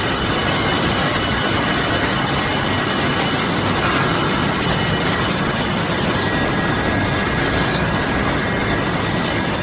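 Machinery of an SPC flooring V-groove painting line running steadily: a loud, even mechanical din with a couple of faint high whines in it and a few light clicks.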